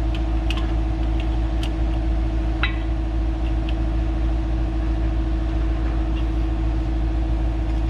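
A few light metallic clicks and taps as a ground-down brake pad is worked into the rear caliper bracket of a Chevrolet Silverado 2500HD, over a steady low machine hum.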